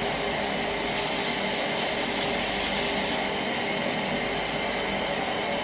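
A steady mechanical drone with a constant low hum in it, unchanging throughout, like a motor or fan running.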